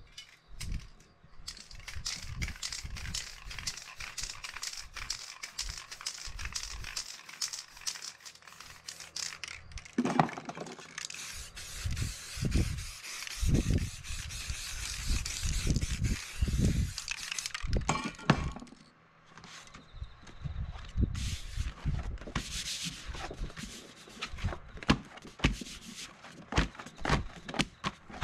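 Aerosol spray-paint can hissing in long sprays, mixed with paper crinkling and rubbing and sharp handling clicks and knocks. The hiss stops about eighteen seconds in and comes back in shorter sprays.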